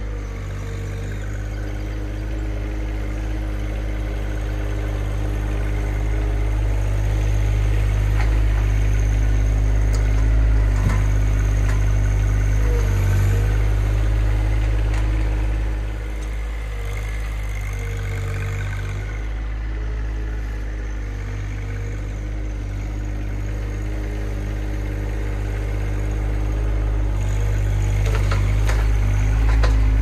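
John Deere 2025R compact tractor's three-cylinder diesel engine running steadily. It grows louder over the first several seconds, drops back about halfway through, then grows louder again near the end as the tractor comes closer carrying a log on its loader forks.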